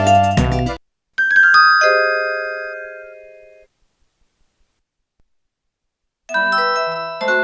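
Electronic ringtones: a busy melody cuts off abruptly, then a short chime of a few struck notes rings out and fades away. After a few seconds of silence, a new melody of struck notes starts near the end.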